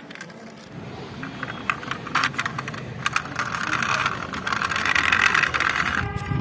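Plastic toy vehicles rattling and clicking as they are handled and rolled, with a rolling whir that grows louder. Just before the end a steady pitched tone starts.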